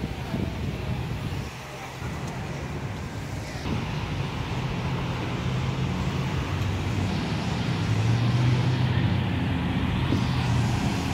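Motor vehicle engine running, a low hum that grows louder toward the end, over the noise of road traffic.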